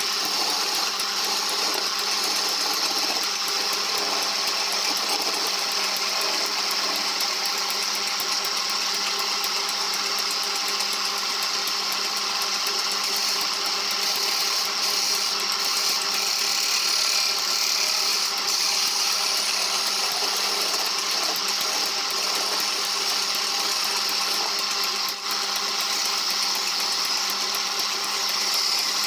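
Electric power tool running steadily as it works the wood of a cup, with a brief dip in loudness about 25 seconds in.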